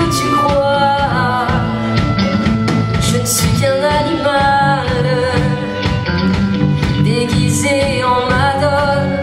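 A woman singing lead with a live band of electric guitars, keyboards and drums playing a steady pop-rock accompaniment.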